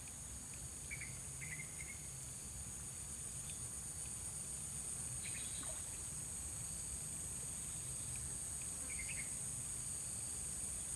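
Steady, high-pitched chorus of insects, with a few faint short chirps about one, two and nine seconds in.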